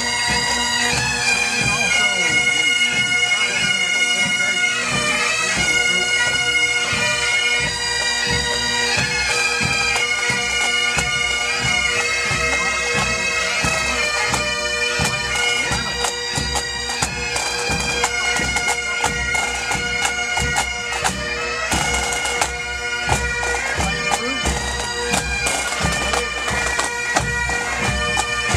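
Massed Highland bagpipe bands playing a tune over their steady drones, with snare and bass drums beating time beneath the pipes.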